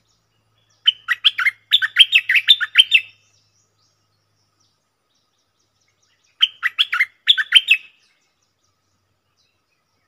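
Stripe-throated bulbul singing two bursts of quick, loud, falling whistled notes: about ten notes in the first, then after a pause of about three seconds a shorter burst of about seven.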